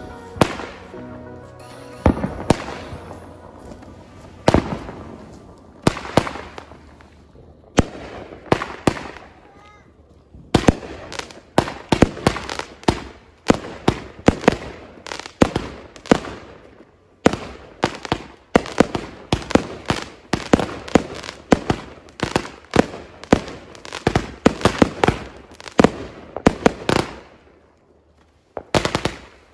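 Consumer fireworks going off in a string of sharp bangs and crackles. The bangs come a second or two apart at first, then several a second from about halfway. They stop shortly before the end, and a new volley starts right at the end.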